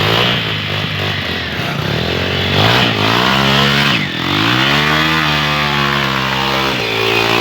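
Trail motorcycle engine revving hard, its pitch swelling up and dropping back twice in long sweeps about halfway through.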